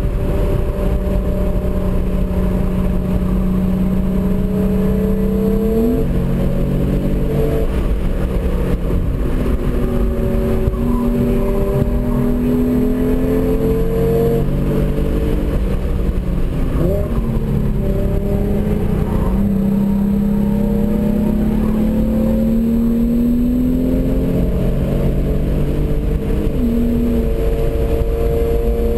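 Hyundai Genesis Coupe's 3.8-litre V6 pulling hard on track, heard from inside the cabin. Its pitch climbs slowly and jumps abruptly several times as gears change.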